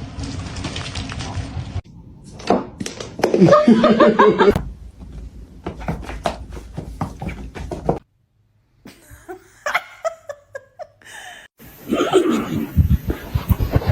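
People laughing in two bouts, one a few seconds in and one near the end, with short clicks and knocks in between.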